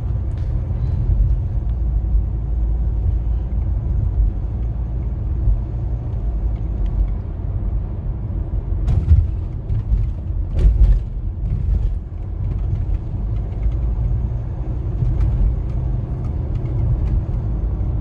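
Steady low rumble of a 2009 Hyundai Santa Fe driving along, heard from inside the cabin, with a few brief knocks about halfway through.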